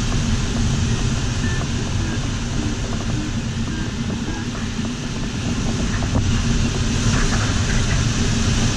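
Steady rush of airflow inside a sailplane's cockpit in gliding flight, with faint short electronic beeps from the variometer at changing pitches.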